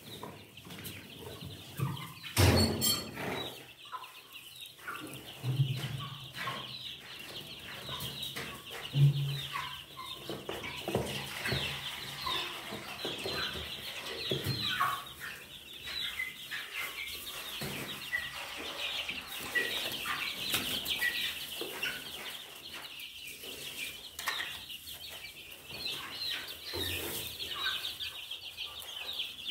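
A brood of chicks peeping continuously in high, rapid chirps, with adult hens clucking low a few times. A single sharp knock comes about two and a half seconds in.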